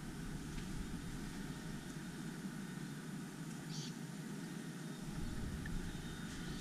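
Steady low rumbling background noise, with one faint short high chirp a little over halfway through.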